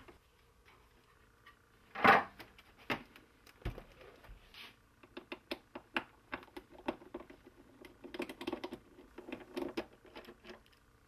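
A single thump about two seconds in, then a run of small irregular clicks and scrapes as a screwdriver turns out the metal screws holding the stand bracket to the back of an LCD monitor's plastic case.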